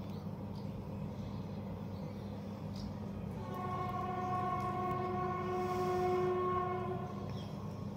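A horn sounds one long, steady note from about three and a half seconds in, lasting about three and a half seconds, over a steady low hum.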